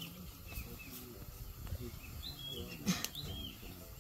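Birds chirping, short downward-slurred calls repeating every second or so, with one sharp knock about three seconds in.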